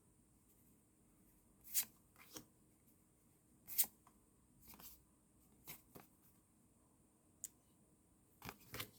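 Trading cards being slid and flicked through by hand, a faint scattering of about nine brief swishes and taps.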